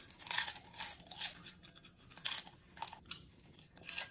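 A mouthful of popcorn being chewed, with irregular short crunches.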